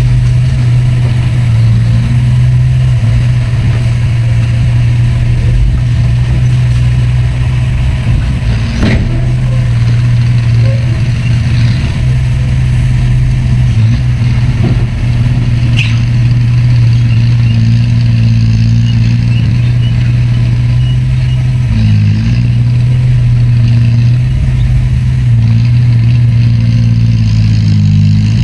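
Heavy diesel engine of earthmoving machinery (bulldozer or dump truck) running steadily under load, its note dipping briefly a couple of times, with a couple of brief knocks.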